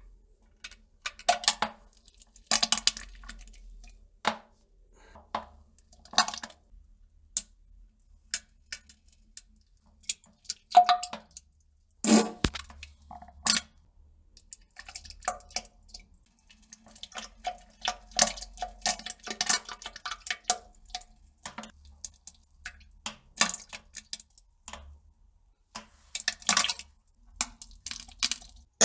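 Bowel movement on a toilet: an irregular run of short plops and drips into the toilet water, mixed with brief pitched farts, including a quick burst of them about two-thirds of the way through.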